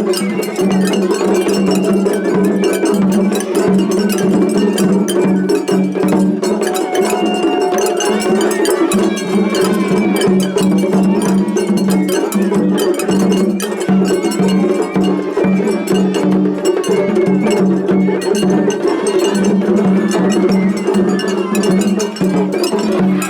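Japanese festival hayashi from two float ensembles playing against each other in a seriai clash. Rapid, continuous metallic clanging from the hand gongs sounds over drums, with a bamboo flute line heard in places.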